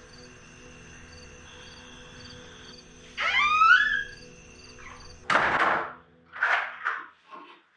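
Horror-film sound design: a low ambient drone under faint cricket-like chirps repeating about twice a second, then a loud rising pitched swell about three seconds in. About five seconds in comes a loud hit, echoed by three shorter, fading repeats.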